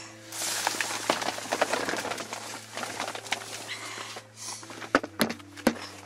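Hands brushing and scraping snow off wooden boards: a crunchy rustle full of small crackles, then a few sharp knocks on the wood about five seconds in.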